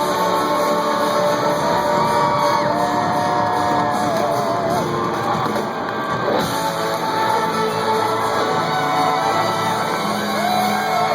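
Live rock band playing, with electric guitar and sung, held notes that slide in pitch over the full band.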